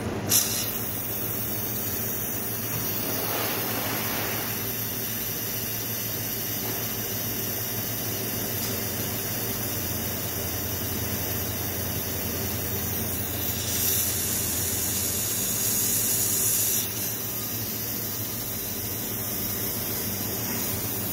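The Carbo 500 carbonator's bottle filler is filling an upside-down plastic bottle with carbonated water. There is a steady hiss of liquid and gas over a low machine hum. A sharp click comes just after the start, and the hiss swells louder for about three seconds partway through.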